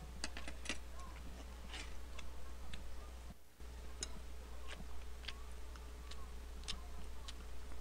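Eating at close range: scattered small clicks of chewing and mouth smacks while rice and fish cakes are eaten, over a steady low hum.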